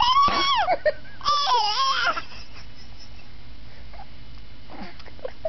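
A baby's high-pitched squealing calls, his "turkey noise": two calls in the first two seconds, the second wavering up and down in pitch, then only faint small sounds.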